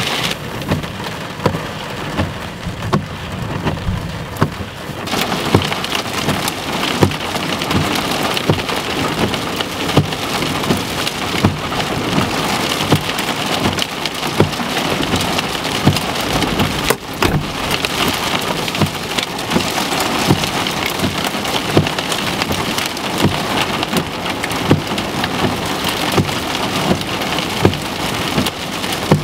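Heavy rain striking a vehicle's roof and windshield, heard from inside the cab, a steady hiss with frequent sharp drop hits. The hiss gets stronger about five seconds in.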